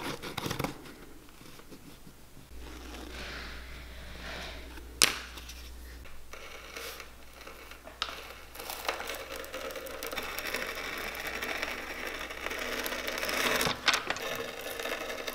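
Vegetable-tan leather being handled and then fed through a bench-mounted leather-working machine: quiet rustling at first, a sharp click about five seconds in, then a steady rough scraping from about nine seconds in.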